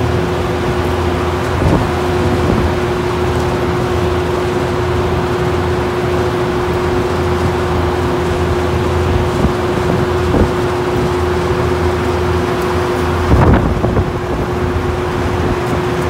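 Steady drone of a refrigeration rack's condenser fans running, a constant hum over a low rumble. A few brief knocks of handling, the loudest near the end.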